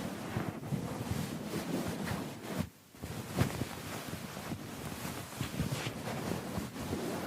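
A computer keyboard being scrubbed: irregular rubbing and scraping strokes, with a short pause about three seconds in.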